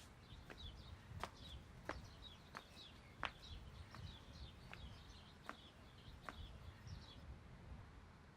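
Faint birds chirping in the bush, along with sharp clicks at a steady pace of about three every two seconds. The chirping fades out about seven seconds in.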